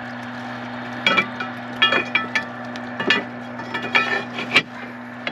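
Metal rod-holder pole and loose stones clinking and knocking against the riverbank rock packing as the pole is wedged in: about eight sharp clinks, several ringing briefly, over a steady low hum.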